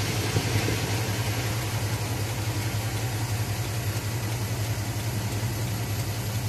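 A steady low engine hum under a continuous hiss.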